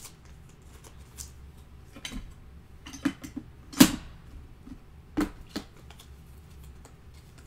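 Trading cards being handled on a table as a pack is gone through: a few sharp taps and clicks, the loudest about four seconds in.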